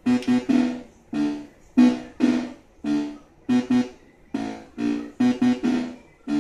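A repeating piano or electric-piano chord pattern: short struck chords, each ringing out and fading, about two a second, some in quick pairs.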